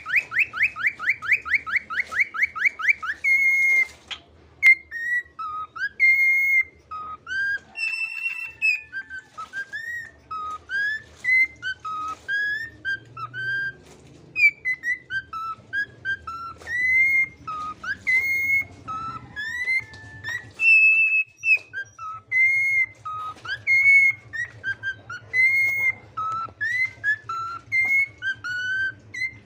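Cockatiel whistling. It opens with a fast run of short rising chirps, about six a second, for the first three seconds, then goes into a long, varied whistled song of clear notes sliding up and down.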